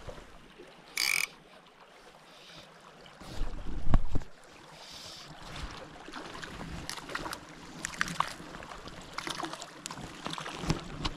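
Wind buffeting the microphone over the steady rush of a shallow river, with a brief hiss about a second in and a loud low rumble about four seconds in.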